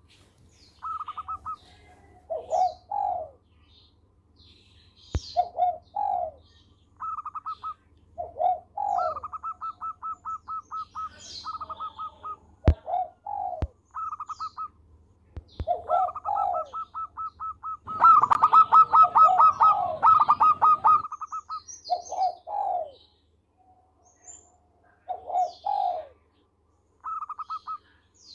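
Zebra dove (perkutut) cooing: repeated short phrases of soft coos and fast rolling, stuttered notes, loudest and densest a little past the middle. Short high chirps are heard between the phrases.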